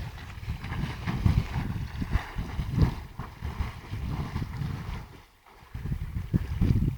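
Wind buffeting the microphone: an uneven low rumble in gusts, dropping away briefly about five seconds in before swelling again.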